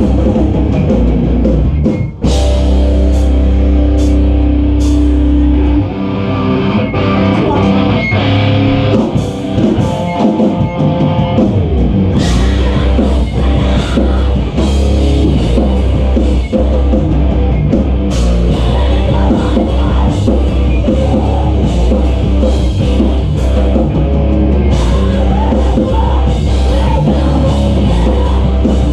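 Loud live rock band playing: electric guitar, bass and drum kit, with a brief stop about two seconds in before the band comes back in.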